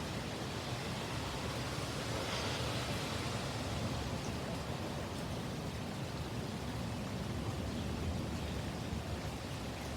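Heavy thunderstorm rain pouring down steadily, with a low rumble of strong wind running underneath.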